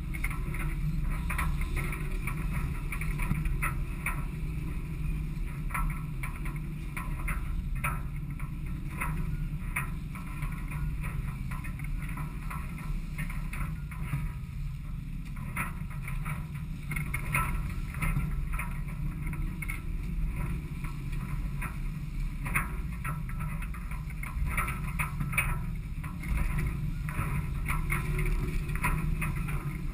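Dazcat 1150 performance catamaran under sail at speed: a steady rumble of wind buffeting the deck-mounted microphone, with water rushing and splashing along the hulls as a constant irregular crackle.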